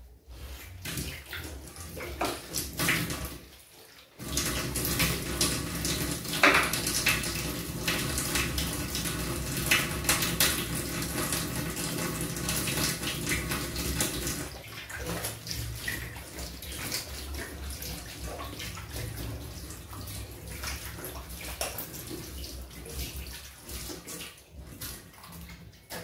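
Kitchen tap running into a stainless-steel sink while hands are rinsed under the stream. The flow starts about four seconds in and is loudest for about ten seconds, then runs softer with a few light knocks.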